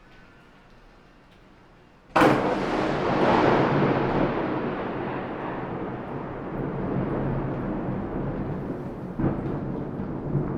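Faint rain, then about two seconds in a sudden loud thunderclap that rolls on as a long, slowly fading rumble over steady rain, with a second, smaller crack near the end.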